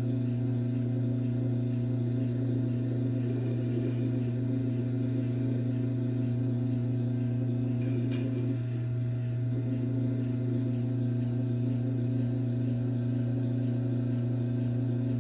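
Tormek T4 sharpening machine's electric motor humming steadily as it turns the leather honing wheel.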